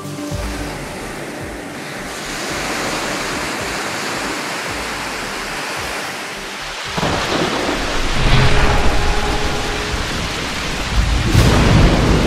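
Thunderstorm sound effect: a steady hiss of rain, then a deep rumble of thunder breaking in about seven seconds in, and another heavy roll of thunder near the end.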